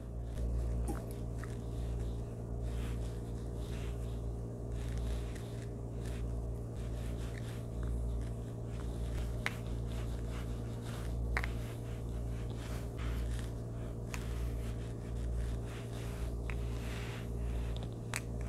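Foundation brush buffing liquid foundation onto the face: faint, soft scratchy strokes over a steady low hum that swells and fades about once a second.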